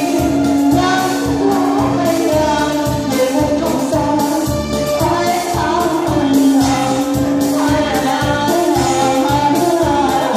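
Music with singing, long held notes over a steady beat.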